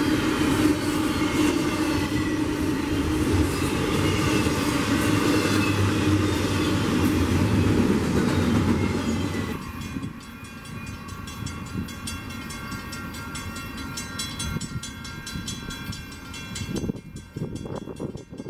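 Double-stack intermodal freight cars rolling past close by, a steady loud rumble of steel wheels on rail. About ten seconds in it drops abruptly to a quieter, distant rumble of the train moving away.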